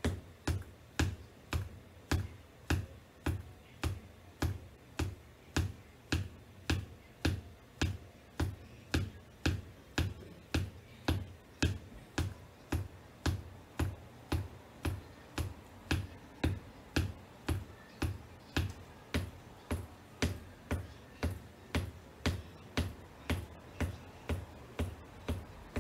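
Black wedge-heeled booties tapping on a hardwood floor in a steady rhythm, about two taps a second, each a sharp click with a dull thud.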